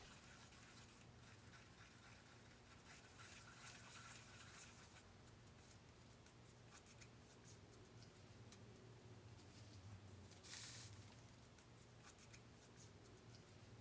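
Near silence over a low steady hum, with faint scratching of an acrylic paintbrush stroking across a stretched canvas in the first few seconds and a brief rustle about ten and a half seconds in.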